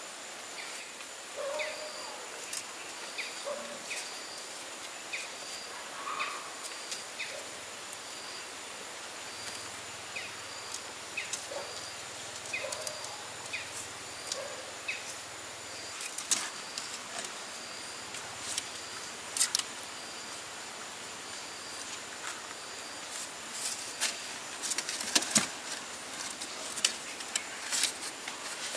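Outdoor ambience with a steady high insect buzz and a short insect chirp repeating about once a second, over faint brief squeaks from young puppies. In the second half, sharp clicks and taps from puppies' paws and claws on bamboo slats come thicker, loudest near the end.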